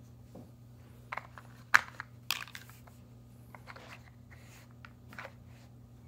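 Red plastic lids of a dog puzzle feeder clacking and scraping as a Saluki noses them open to get at treats: a few scattered sharp clicks, the loudest about two seconds in.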